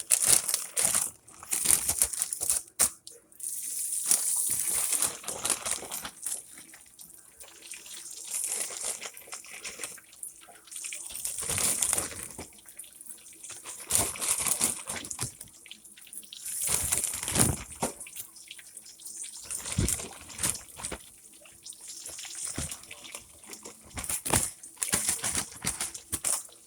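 Breaded onion rings deep-frying in hot grease, sizzling with a hiss that swells and fades in surges.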